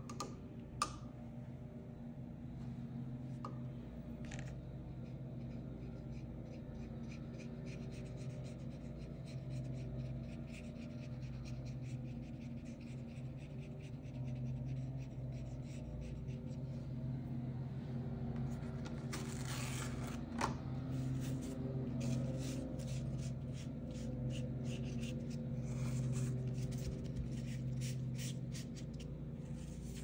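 Repeated short scratching strokes of drawing on paper, over a steady low hum.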